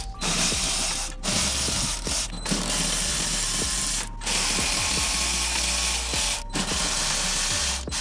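Cordless power ratchet with an 8 mm socket on an extension spinning out screws on a car's under-bumper wind deflector. It runs in several bursts of one to a few seconds, with brief stops between them.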